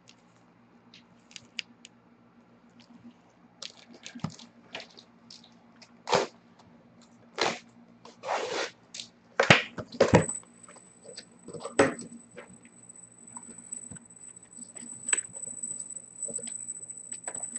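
Packaging of a sealed trading-card case being torn and handled: irregular crackles, rips and clicks, some short and some lasting about half a second. About ten seconds in, a steady high-pitched whine starts and holds.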